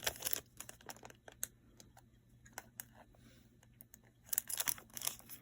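Plastic packaging crinkling and rustling as small items are handled, with scattered light clicks and ticks. It grows busier near the end.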